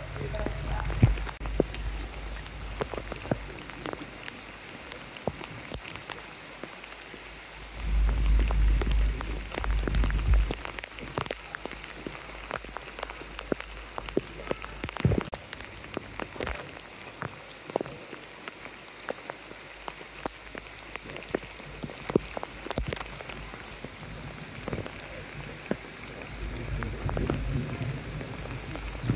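Heavy rain pouring onto a wet, puddled street: a steady hiss crowded with sharp drips and splashes. Bursts of low rumble come about eight seconds in and again near the end.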